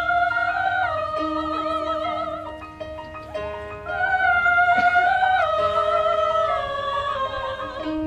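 Women's show choir singing slow, long-held notes with vibrato over instrumental accompaniment, in two phrases that each step down in pitch.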